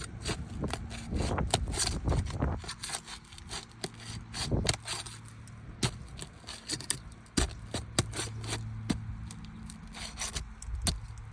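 Asphalt roof shingles being pried apart to break their sealant strip: a run of irregular scrapes, crackles and sharp clicks as the bonded tabs tear loose.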